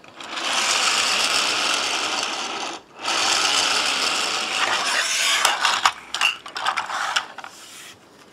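Pull-back spring motor of a toy high-speed train whirring as its wheels are turned, in two long spells of about two and a half seconds each, winding the spring. These are followed by a run of uneven clicks and short whirs that fades out near the end.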